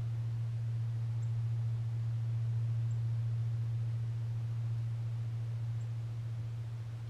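A steady low hum, one even tone that holds throughout without changing pitch.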